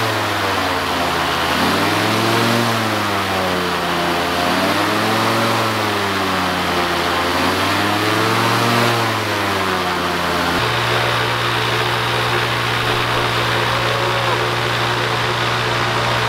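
Rotax 912 ULS flat-four aircraft engine with propeller on a test stand, its throttle pumped so that it revs up and falls back about four times in slow swells: this loads the brand-new piston rings against the cylinder walls to seat them during break-in. About ten seconds in it changes to running steadily at a constant speed.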